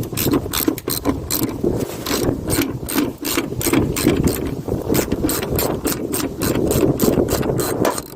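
Socket ratchet clicking in quick strokes, about four clicks a second, as 13 mm hood hinge bolts are loosened, over a steady low rumble.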